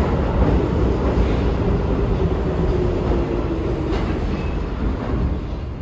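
R46 subway train running along the platform and slowing, with a steady low rumble of wheels on rail and a few clacks. A low whine dips in pitch about three to four seconds in, and the sound eases off as the train nears a stop.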